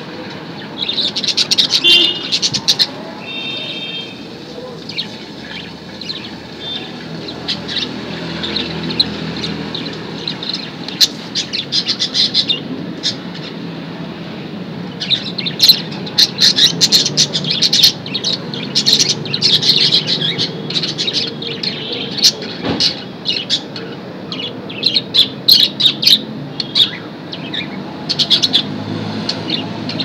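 Budgerigars chirping and chattering in bursts of rapid, sharp high chirps, with quieter stretches between the bursts.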